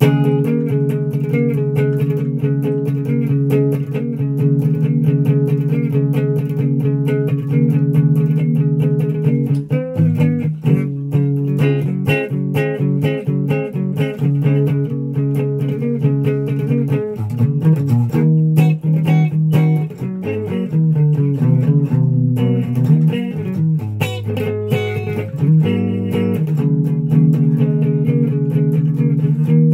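SG-style electric guitar playing low riffs of rapidly repeated picked notes, changing to a new riff about ten seconds in and moving through more varied phrases from around eighteen seconds.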